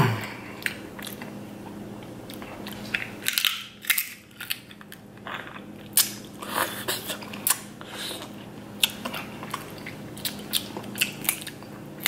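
Snow crab leg shells cracking and snapping as they are broken apart by hand, close to the microphone, mixed with chewing and wet mouth sounds; a string of irregular sharp cracks and clicks.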